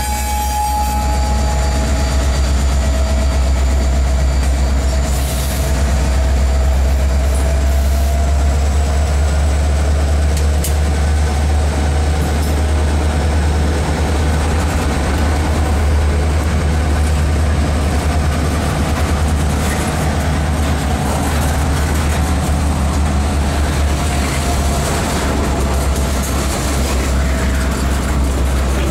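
Freight train rolling past with a steady, heavy low rumble. The trailing EMD GP38-2 locomotive goes by at the start, then loaded centerbeam lumber flatcars follow. A thin, wavering wheel squeal rides over the rumble for most of the time.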